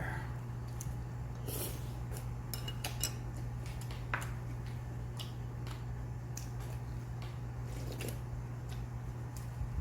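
Spoon and chopsticks clinking now and then against dishes, with a few soft eating noises, over a steady low hum. The sharpest clinks come about three and four seconds in.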